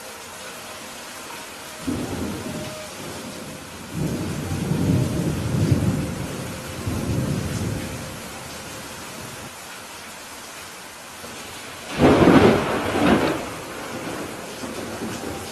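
Steady rain with thunder: low rolling rumbles from a couple of seconds in, then a louder, sharper thunderclap near the end.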